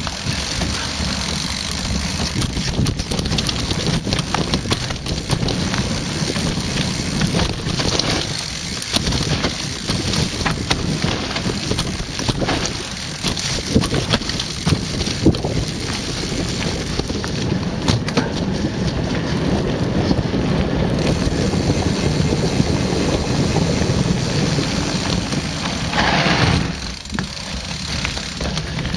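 Mountain bike descending a rough dirt trail at speed: a continuous rattle of tyres over dirt and stones and of the bike's chain and frame, broken by many sharp knocks, with wind buffeting the microphone. A brief louder hiss comes near the end.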